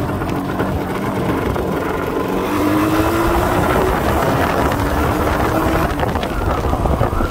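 Yamaha RD350 31K's two-stroke parallel-twin engine running, its pitch and loudness rising about two and a half seconds in and then holding steady.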